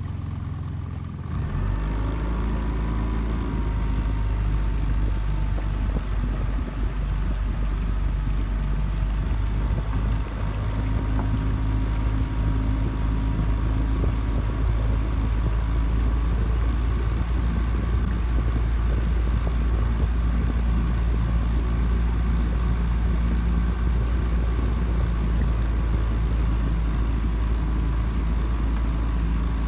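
A boat's motor running steadily, with a heavy low rumble, a few steady engine tones above it, and a faint whine higher up. It comes up to full level about a second in.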